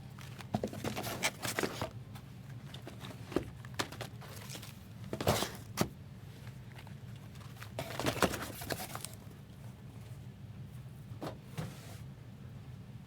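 Handling noise from a cardboard trading-card box and its packs: scattered taps and rustles, the loudest a few seconds in and again around the middle, over a steady low hum.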